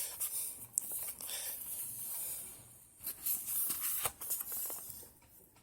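Paper rustling with a few light clicks as a thin paperback book is handled and its pages turned, in two bursts, falling quiet near the end.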